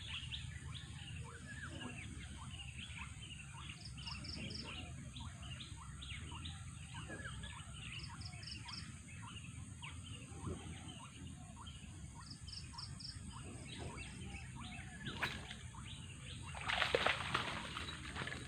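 Many birds chirping in a dense outdoor chorus, with a short pulsed call repeating about every four seconds over a steady high hiss. A brief louder noise comes near the end.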